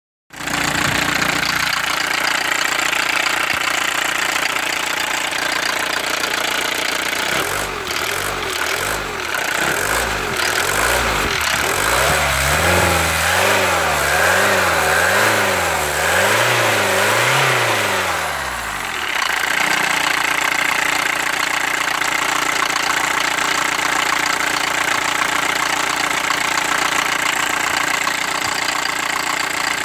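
Mercedes 190 D's 2.0-litre four-cylinder diesel engine running, heard from the open engine bay. It idles steadily, then its pitch rises and falls over and over for about ten seconds in the middle as the revs go up and down, then it settles back to a steady idle.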